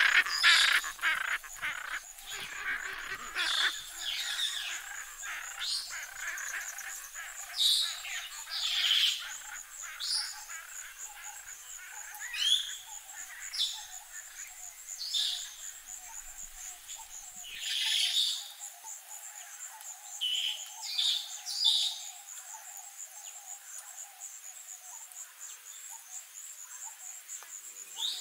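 Parrots calling. A dense run of harsh squawks fills the first few seconds, then single squawks come every second or two. Under them is a steady, high-pitched, pulsing insect drone and a lower background hum.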